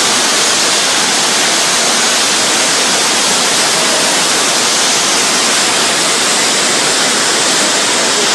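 Floodwater rushing in a loud, steady torrent, without a break.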